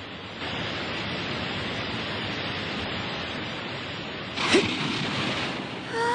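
Rushing surf of a big breaking wave, a steady noise that grows louder about half a second in, with a sudden sharp splash-like sweep about four and a half seconds in. Near the end a girl's voice exclaims with rising pitch.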